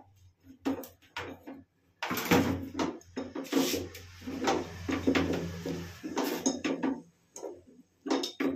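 Metal tools knocking and clinking against a plastic cistern flush tank while fittings inside it are tightened with a spanner: a series of sharp knocks and clatters with short pauses between them.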